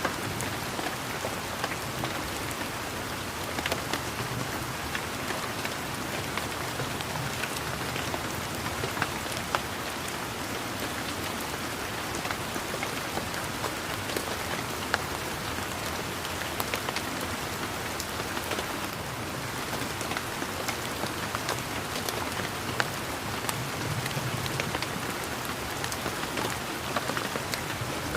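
Steady rain falling on garden foliage, an even patter with many scattered, sharper individual drop ticks.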